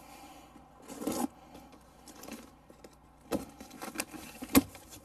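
Folding pocket knife slicing the packing tape on a cardboard box, with cardboard scraping and rustling as the box is handled. A cluster of sharp clicks and cracks comes in the last two seconds, the loudest near the end.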